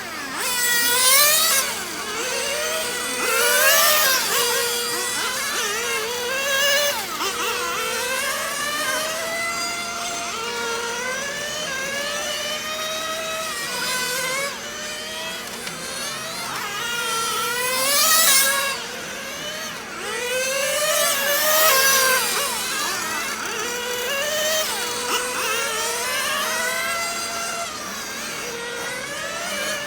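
Small nitro RC car engines, 1/10 scale, screaming up and down in pitch as the cars accelerate and lift off around a track; more than one engine is heard at once, overlapping.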